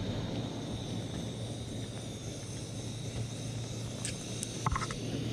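Steady low rumble, with a few quick light metallic clinks of a steel cook pot and cup near the end.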